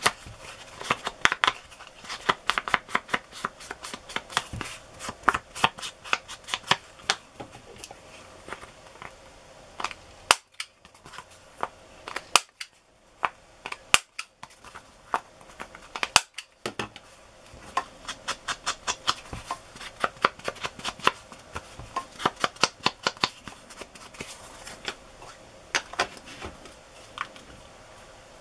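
A foam ink blending tool dabbing and scuffing in quick repeated taps along the edges of a card. About ten seconds in come four sharp snaps roughly two seconds apart: a handheld corner-rounder punch cutting the four corners. After that the quick dabbing resumes.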